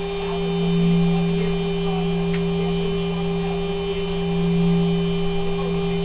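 A 3 kW water-cooled CNC router spindle, the higher-quality version with better bearings, running steadily at its full 24,000 RPM. It gives a steady high hum over a lower drone that swells twice.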